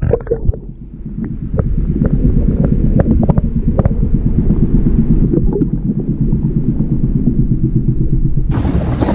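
Muffled underwater sound picked up with the camera held below the sea surface: a dense low rumble with scattered sharp clicks, the high end cut away. About eight and a half seconds in, the sound suddenly opens up into wind and splashing water as the camera comes out of the sea.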